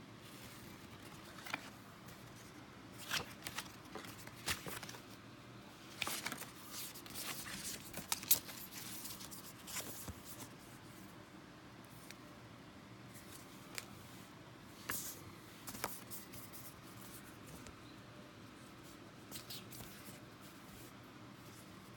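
Hands handling paper and packaging: faint, irregular rustles, scrapes and small clicks, busiest around the middle.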